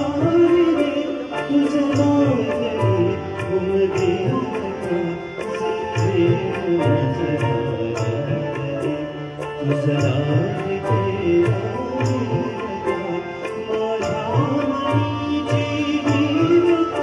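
Live Marathi song: a male voice singing a melody, accompanied by harmonium and a steady percussion beat.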